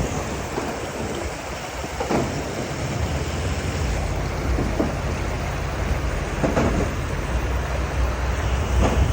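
Vehicle moving over rough ground: a steady low engine and road rumble that strengthens about four seconds in, under a constant hiss of noise, with a few faint knocks.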